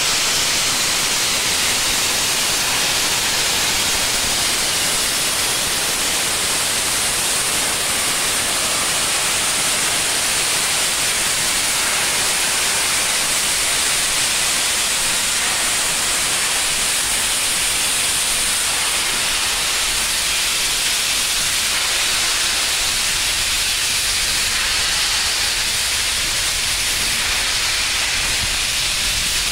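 Steam locomotive venting steam: a loud, steady hiss that holds an even level throughout.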